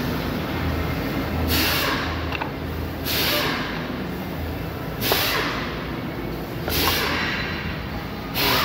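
Steady low hum with five short rasping bursts of plastic scraping, about one every second and a half, as the plastic end cap of a roof crossbar is worked loose with its key.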